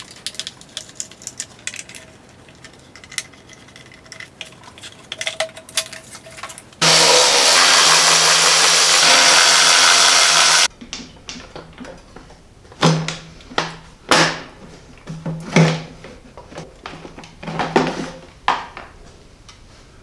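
A cordless power tool backs out the bolts holding the lawn mower engine's shroud. It runs steadily for about four seconds, then in several short trigger bursts. Light clicks and rattles of handling the parts come before it.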